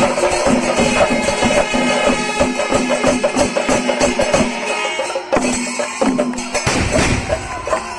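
Kerala temple melam: chenda drums beaten in rapid, dense strokes with clashing ilathalam cymbals, and some steady held tones among them.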